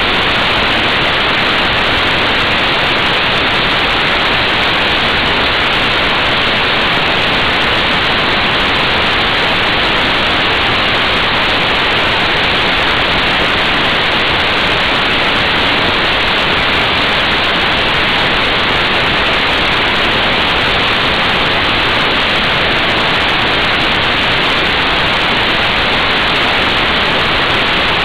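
Wind rushing over the microphone of a motorcycle-mounted action camera at motorway speed: a loud, steady hiss that buries the motorcycle's engine note.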